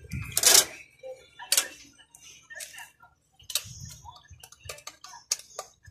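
Irregular clicks, taps and a brief rustle, loudest about half a second in, as LED backlight strips are handled and set onto the TV's back panel and reflector sheet.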